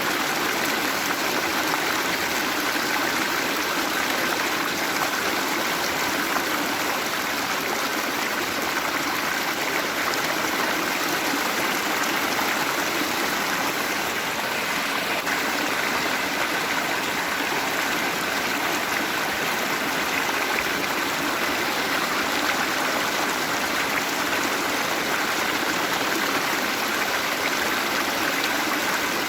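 Waterfall: a steady rush of falling and running water, even and unchanging.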